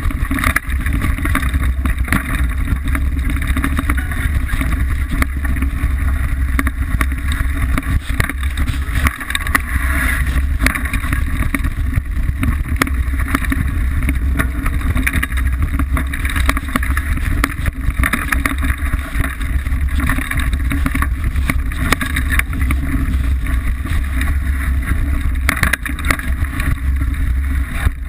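Wind buffeting the microphone of a camera mounted on a Liteville 301 mountain bike descending a rough dirt singletrack at speed, over a constant rattle and clatter of the bike and its tyres on the uneven ground.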